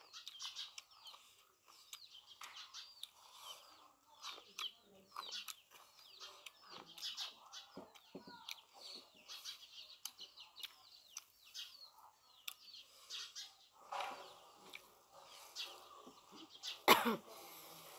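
Birds chirping and calling steadily in the background, with a single sharp knock near the end.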